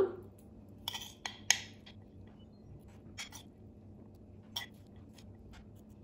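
A metal spoon giving a few light, scattered clinks and scrapes as it spoons grated apple and quince into hollowed quince halves in a pot.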